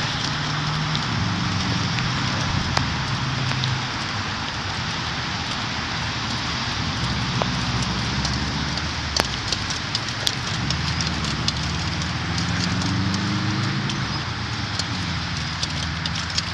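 Steady rain falling, a constant hiss, with scattered sharp ticks and a low rumbling hum underneath.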